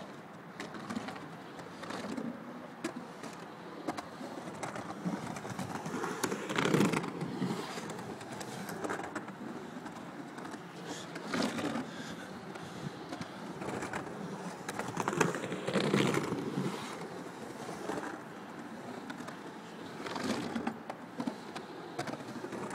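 Skateboard wheels rolling around a skatepark bowl, the noise swelling and fading again and again as the rider carves up and down the transitions, with occasional clicks from the board. The loudest surges come about a third of the way in and again about two-thirds in.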